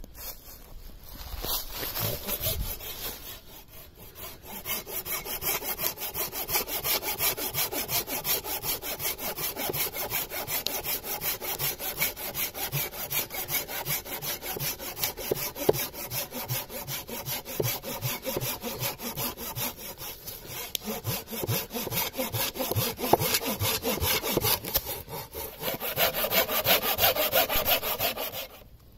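Folding hand saw cutting through a dead log in fast, even back-and-forth strokes. There is a short break about four seconds in, then steady sawing that stops just before the end.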